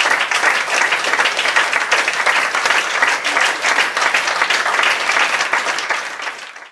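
Audience applauding, a dense steady patter of many hands clapping that fades away near the end.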